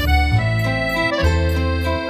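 Background music: a melody of held notes over a steady bass line.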